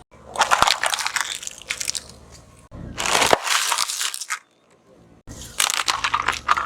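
Brittle objects crunching and cracking as they are crushed under a car's tyre, in three separate bursts of crackling with abrupt breaks between them.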